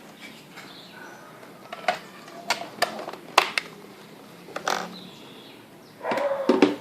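A series of sharp, separate clicks and taps from hard plastic items being handled, with a louder, longer sound about six seconds in.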